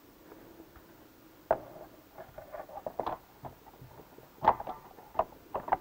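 Plastic cover and case of an RS800 CVT transaxle being handled and fitted together: irregular light clicks, taps and scrapes of plastic on plastic, with sharper knocks about a second and a half in and again at about four and a half seconds.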